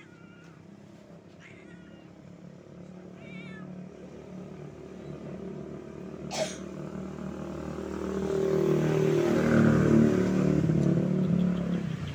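A calico stray cat meows a few short times, calling for food because it is hungry. From about the middle an engine passes, growing loud and then fading near the end; it is the loudest sound. There is one sharp click about halfway through.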